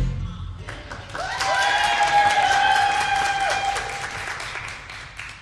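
A burst of clapping with a long drawn-out cheer over it, starting about a second in and fading away toward the end.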